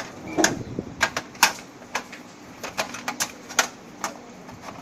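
A dozen or so irregular sharp clicks and knocks of hardware being handled as a hard drive is fitted into a DVR case.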